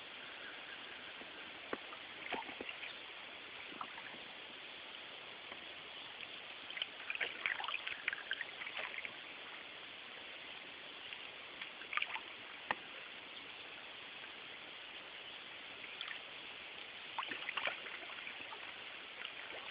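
Canoe paddle strokes in water: short irregular splashes and drips every few seconds over a steady background hiss.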